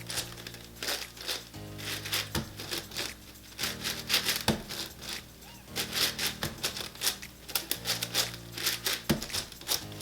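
Rapid plastic clicking and clacking of a MeiLong 12x12 speed cube's layers being turned in quick runs of moves, over background music with sustained low chords.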